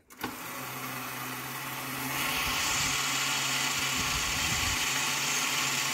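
Ideal Electronic Fighter Jet toy running: a steady electric motor hum, joined about two seconds in by a rushing hiss as the sound grows louder, with the throttle lever pushed up.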